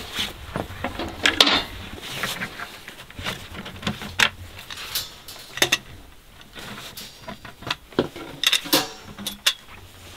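Irregular clicks and knocks of a folding camp table's metal rails and legs and its wooden top being folded up and handled.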